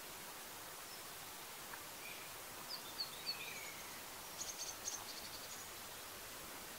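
Small birds chirping faintly over steady outdoor background hiss: a few short chirps and a falling whistle a few seconds in, then a quick rattling trill.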